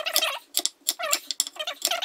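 Chef's knife cutting through a raw red potato on an end-grain wooden board: several quick strokes, each with a squeak as the blade passes through the firm potato and a sharp tap as it hits the wood.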